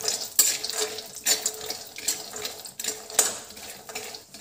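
Metal spatula scraping and stirring walnuts and cashews around a metal kadhai as they roast, with a sharp scrape every half second to a second over a steady hiss.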